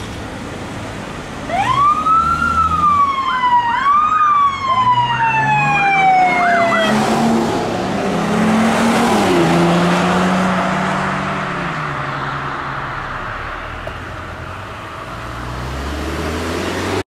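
An emergency vehicle's siren wailing, its pitch sweeping up and falling away twice, from about a second and a half in until it cuts off about seven seconds in. A vehicle then passes with a rush of engine and tyre noise that fades, and another vehicle approaches near the end.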